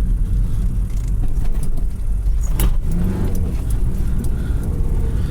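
Low road and engine rumble inside a car's cabin as it drives slowly, with a few sharp clicks and rattles about two seconds in.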